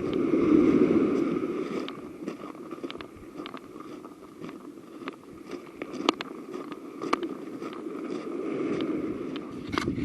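Wind gusting on the microphone, strongest in the first two seconds, with scattered clicks and rustles throughout.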